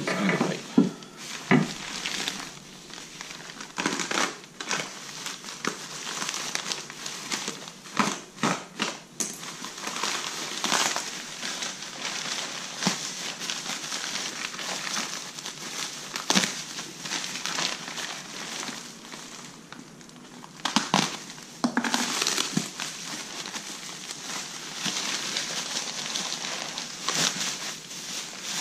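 Plastic packaging wrap being crinkled, crushed and pulled off by hand: irregular rustling and crackling with many sharp crackles, easing briefly about two-thirds of the way through.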